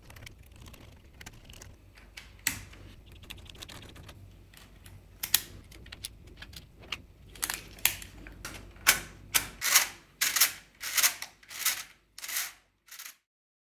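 3D-printed plastic gear parts clicking and tapping against each other and the printed page as they are handled and fitted together. The clicks are sparse at first, come about two or three a second over the last few seconds, and stop suddenly near the end.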